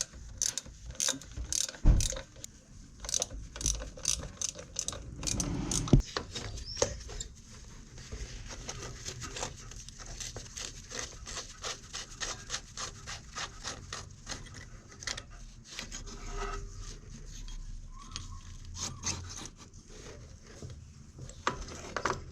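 Clicks, taps and knocks of hand tools and metal parts being handled while an ATV carburettor and its hoses are taken off, with louder knocks about two and six seconds in.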